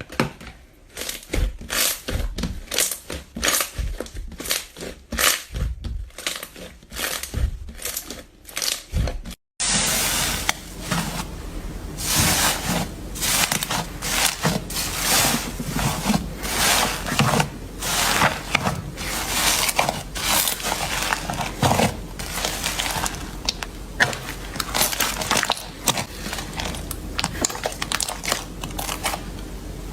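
Slime being squeezed and poked by hand, giving a run of sticky clicks and crackles. About nine and a half seconds in, the sound changes abruptly to denser crackling over a steady low hum.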